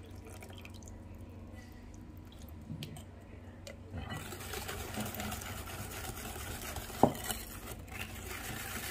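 Wire hand whisk beating cake batter in a glass mixing bowl, starting about four seconds in. A single sharp clink comes about seven seconds in.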